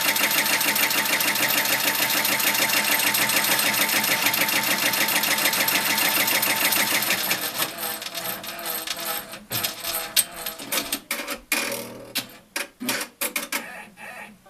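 Brother PR1000e embroidery machine stitching at speed, a fast even mechanical rhythm, in a recording made to show a squeaking shaft. About seven seconds in the stitching stops, and a run of irregular clicks and short mechanical noises follows.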